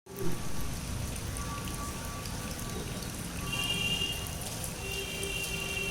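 Steady rain falling, an even hiss with fine drop ticks. In the second half a high steady tone comes in twice, each lasting under a second.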